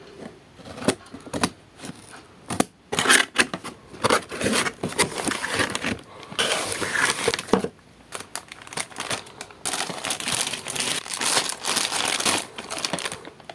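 Crinkly plastic packaging being handled, rustling and crackling in irregular bursts with short pauses.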